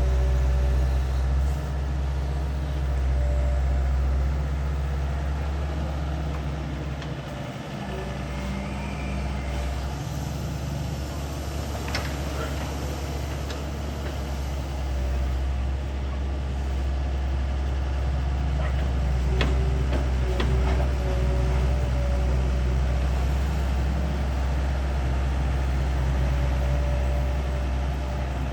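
Diesel engine of an IHI long-reach excavator running steadily under digging load, with a few sharp knocks near the middle and again about two-thirds through.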